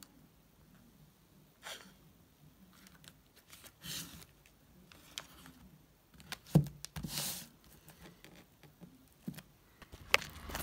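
Handling noises from a small cardboard firework cake being turned over in the hand: scattered faint rubs and clicks, with a light knock about six and a half seconds in.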